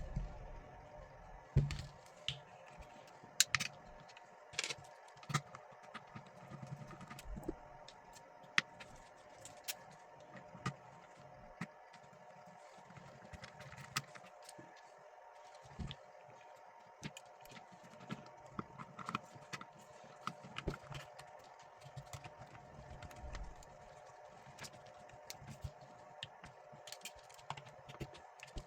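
Irregular clicks, taps and knocks of small plastic and metal parts and tools being handled as a pond air pump's housing is put back together, over a faint steady hum.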